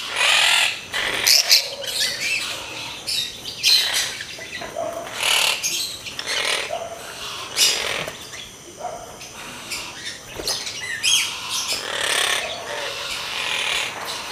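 Monk (Quaker) parakeets calling: an irregular run of short, scratchy chattering calls, one after another.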